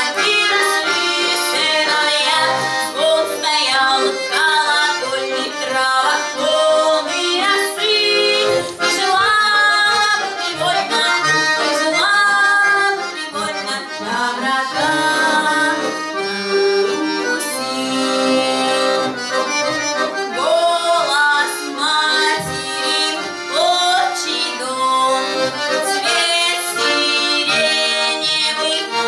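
A woman singing a folk song to button-accordion accompaniment.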